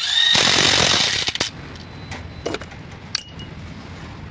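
Electric impact wrench hammering on the bolts of a truck differential's crown wheel for about a second and a half, then stopping. A sharp metallic clink follows about three seconds in.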